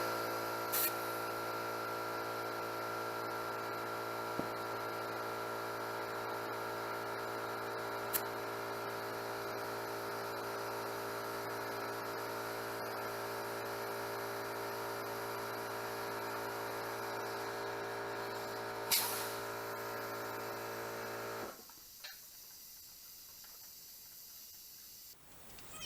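Electric air compressor running steadily, inflating an ATV tire to seat its beads, with a few short clicks and a louder snap about nineteen seconds in. The motor cuts off suddenly a few seconds before the end.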